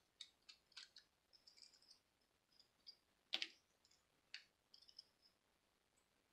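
Faint clicks and small scrapes of tiny watch parts being handled and pried apart by hand, with one sharper click about three and a half seconds in.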